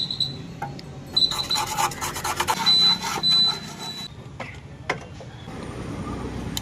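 Rapid metal scraping or rasping, like a hand tool worked against a motorcycle part, from about one to four seconds in, with a thin ringing tone during it and a few sharp clicks before and after.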